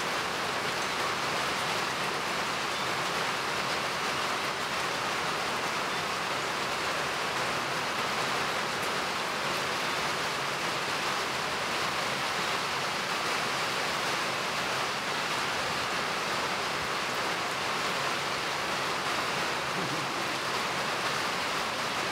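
Steady, even rushing hiss that does not change and holds no separate knocks or voices.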